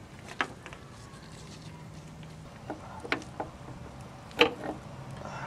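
Sharp metal clicks and knocks, about six in all and the loudest about four and a half seconds in, as the gears and parts inside an MGB's Salisbury differential carrier are handled by hand. A low steady hum runs under them.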